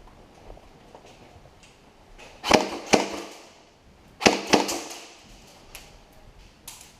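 Airsoft guns firing inside a building: four sharp cracks in two quick pairs, each with a brief ring from the room.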